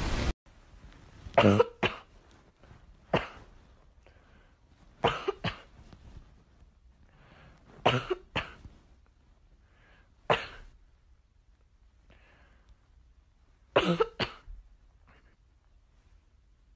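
Short, dry coughs come in about six bouts, mostly pairs about half a second apart, every two to four seconds.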